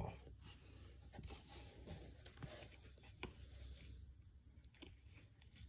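Faint rustling and soft ticks of glossy trading cards being slid one over another in the hands.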